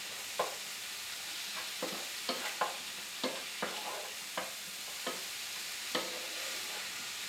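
Sliced mushrooms sizzling in oil in a nonstick skillet while a wooden spatula stirs them, knocking and scraping against the pan in irregular light taps over a steady sizzle.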